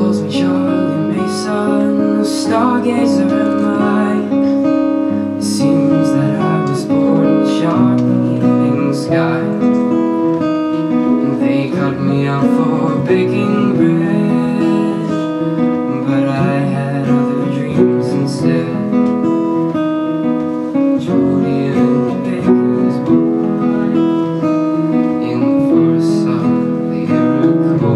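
Live acoustic guitar strumming chords, accompanied by a grand piano.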